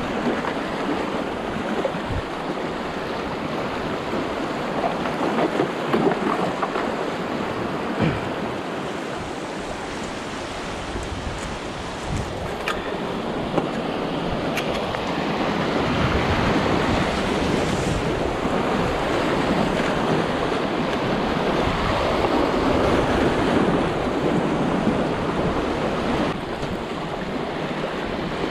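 Small desert creek running high and muddy after a wet season, rushing over rocks in continuous whitewater rapids, with a few brief knocks along the way.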